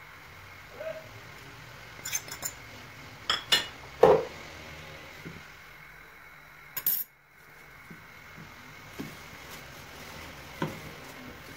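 Scattered clinks and knocks of dishes against an aluminium pressure cooker while ingredients are tipped in, the loudest about four seconds in.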